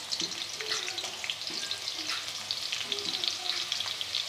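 Finely chopped onion frying in hot ghee: a steady sizzle with many fine crackles.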